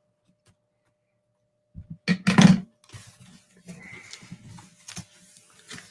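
A cardboard shipping box being handled and opened by hand: near silence at first, a loud short noise about two seconds in, then faint scraping and rustling.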